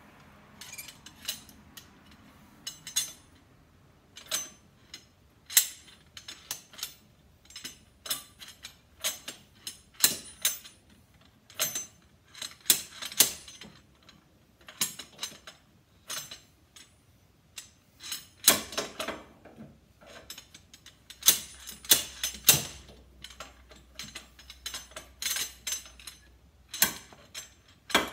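Slide hammer hooked to a clamp plate on a car's driveshaft, yanked again and again so its weight clanks against the stop: sharp metallic clacks at uneven intervals, about one or two a second, some in quick runs, as it works to knock the shaft's inner joint out of the transfer box.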